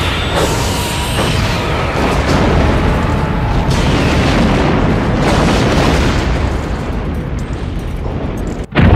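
Film sound effect of a starship exploding: a long, loud, rumbling blast, with music under it. It cuts out briefly near the end, and another blast starts at once.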